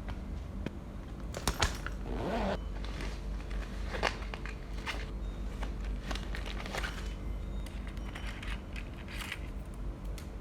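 Irregular sharp clicks and short crinkling rustles, like small objects or material being handled, over a steady low hum.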